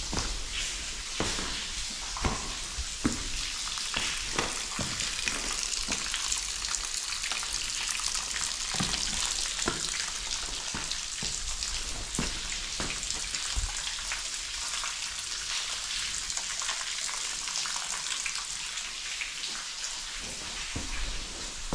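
Footsteps on stony ground, about one a second at first and then more scattered, over a steady hiss of falling water.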